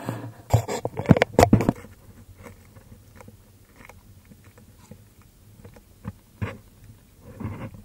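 A quick cluster of sharp clicks and knocks from about half a second to two seconds in, then scattered fainter ticks and another single knock near the end.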